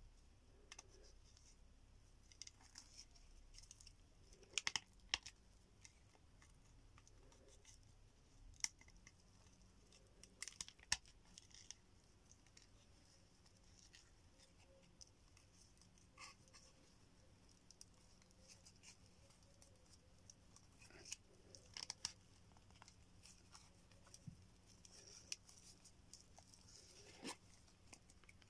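Faint rustling and scraping of twisted fibre cord being wound tightly around a bone handle, with a handful of sharper clicks as the cord and fingers rub and tug against the bone.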